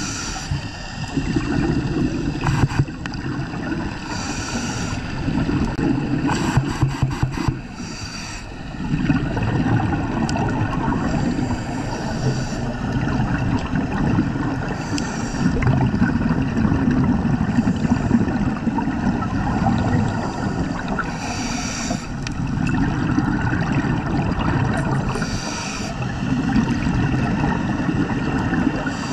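Underwater sound of scuba diving: a diver's regulator exhaust bubbles rumble and gurgle in surges, with a hiss of bubbles every few seconds. There is a short run of clicks about seven seconds in.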